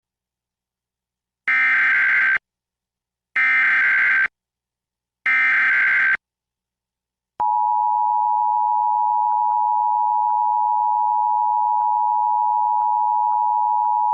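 Emergency Alert System test signal: three identical one-second bursts of SAME digital header data tones, evenly spaced, followed by the steady two-tone EAS attention signal (853 and 960 Hz).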